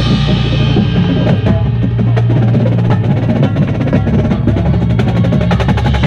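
Drum corps front ensemble playing: rapid, dense mallet strokes on marimbas and xylophones over sustained low notes.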